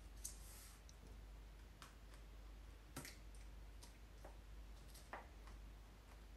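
Faint, irregular clicks and crackles, about five in all, from a sheet of dark foam being cut and pressed flat by hand.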